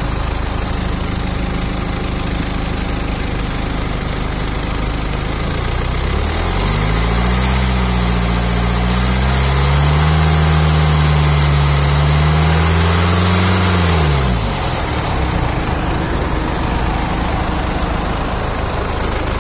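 BMW 320d four-cylinder turbodiesel idling, then revved up about six seconds in. It is held at raised revs for about seven seconds, then drops back to idle.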